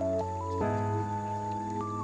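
Background music: a melody moving in held steps over sustained chords, with a chord change about half a second in.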